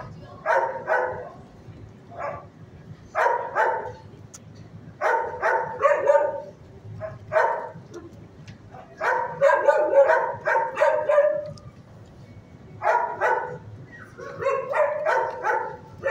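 Shelter dog barking in repeated short bursts of two to four barks, a burst about every second or two, with a longer run of barks about ten seconds in.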